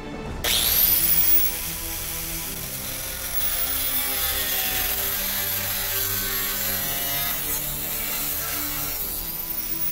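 Angle grinder spinning up about half a second in, then grinding steadily along the edge of a bed-frame steel knife blank to cut its profile.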